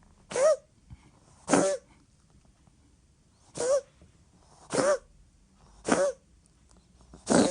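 A cat sneezing repeatedly: six short sneezes at roughly one-second intervals, with a longer pause after the second. The sneezing fit is set off by having its throat rubbed.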